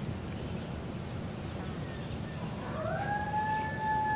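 A coyote howls once, a single long howl that rises in pitch about two-thirds of the way in and then holds steady on one note.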